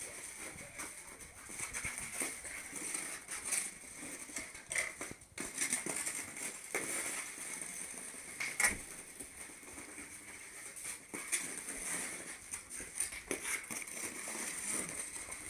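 Ice-skate blades scraping and clicking on a thin glaze of ice over paving stones, in irregular strokes with sharp ticks now and then, the sharpest about eight and a half seconds in.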